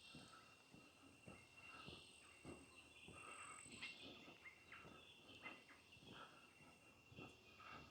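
Rainforest ambience: a steady high insect drone with scattered short bird chirps, and soft footsteps on the forest floor at a walking pace.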